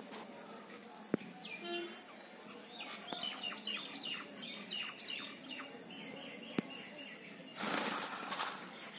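Caged parakeet calling: a short pitched call, then a rapid run of about a dozen short, quick chirps at roughly three a second. Two sharp clicks come through, and near the end there is a loud burst of rustling.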